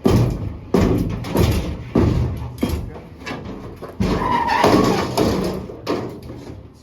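A series of heavy knocks and thuds, roughly one every half second to a second, with scraping and rattling between them, from blocks and furnace parts being pried loose and handled during a furnace change-out.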